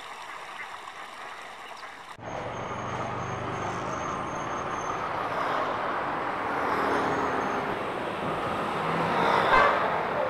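Road traffic: a lorry and motor scooters going by, starting suddenly about two seconds in and growing louder, with the loudest moment near the end as the lorry passes close.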